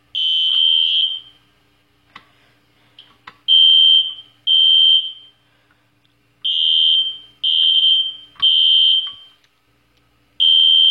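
System Sensor SpectrAlert Classic fire alarm horn sounding a steady high-pitched tone in short blasts, mostly in groups of three with a pause between groups: the temporal code-3 evacuation pattern, set off by pulling a Fire-Lite BG-12 pull station.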